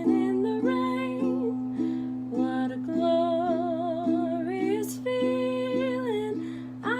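A solo voice singing a slow song with vibrato over plucked string-instrument chords, about two a second.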